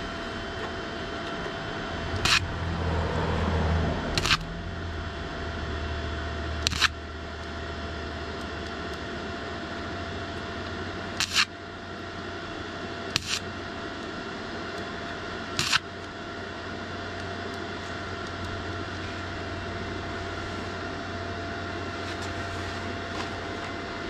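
A cheap flux-core wire-feed welder, turned down low for thin sheet steel, hums steadily. Six short, sharp cracks come at uneven gaps of a few seconds, and a louder rush of noise comes about two to four seconds in.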